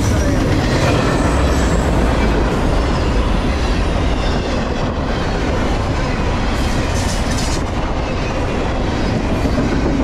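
Double-stack intermodal container cars rolling past close by: a loud, steady rumble of steel wheels on the rails that does not let up.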